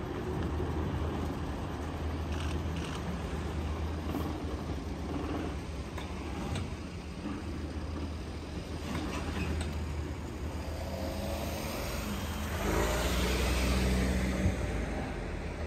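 Road traffic with a heavy vehicle's engine running; about eleven seconds in, an engine rises in pitch and passes close, loudest for a couple of seconds, with one sharp click near the end of that.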